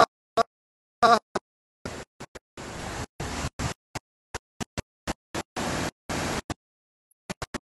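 Steady rushing noise of fast floodwater on a phone microphone, repeatedly cut off to dead silence by audio dropouts, leaving short choppy fragments. A brief clipped snatch of voice comes about a second in.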